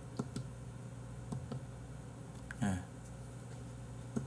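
A few scattered computer mouse clicks, sharp and sparse, over a steady low hum, with one brief low sound a little past the middle.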